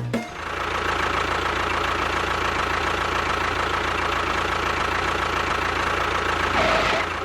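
A motor running steadily with a fine, rapid rattle, starting and stopping abruptly; a brief higher tone joins near the end.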